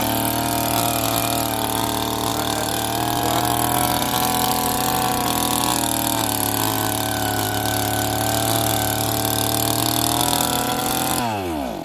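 Pro Quip Auger 58's 58 cc two-stroke engine running steadily at high speed as the auger bores a hole in the soil. Near the end it is switched off, its pitch falling quickly as it winds down and stops.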